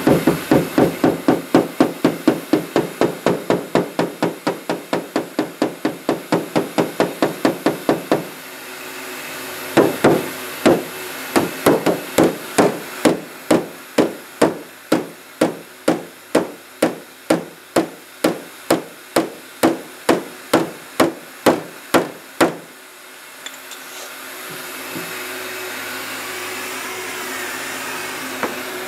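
Hammer tapping on an aluminum car hood, working out dents: rapid even taps, about five a second, for the first eight seconds, then after a short pause slower, harder taps about two a second. A steady blowing noise, fitting a heat gun, runs under the first taps and comes back near the end.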